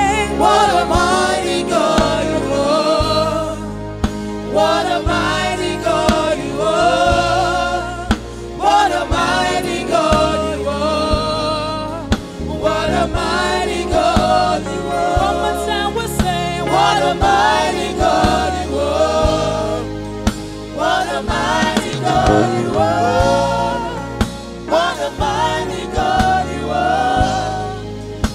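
Live gospel worship song: a woman's lead vocal with backing singers joining in, over instrumental backing with a steady bass line.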